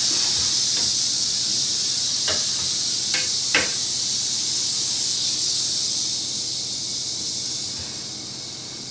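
Eastern diamondback rattlesnake rattling its tail in a defensive warning: a steady high buzz that eases off about eight seconds in. A few light knocks come in the first half.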